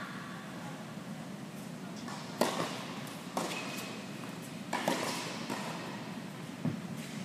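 Tennis ball being struck by rackets and bouncing on an indoor hard court during a rally: four sharp pops, the first the loudest, a second or so apart, each echoing in the large hall.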